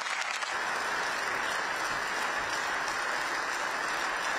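Steady applause from a crowd of members of parliament.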